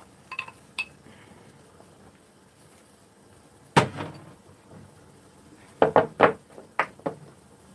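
A ceramic bowl clinks lightly a couple of times, then is set down with one solid knock. A few seconds later comes a quick run of sharp clicks as the snap-lock tabs of a plastic food container's lid are unclipped.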